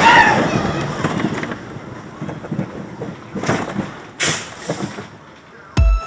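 Arrow Development mine-train roller coaster train rolling slowly on its steel track as it coasts back toward the station, the rumble fading, with riders' voices at the start and two short hisses in the middle. Electronic music with a steady beat starts near the end.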